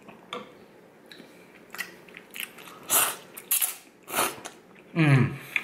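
A person slurping ramen noodles: three short, loud slurps about three to four seconds in, after soft chewing, then a brief hum of the voice falling in pitch near the end.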